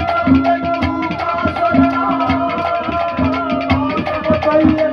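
Instrumental accompaniment of a Haryanvi ragni: hand drums beat a steady repeating rhythm under a sustained melodic line.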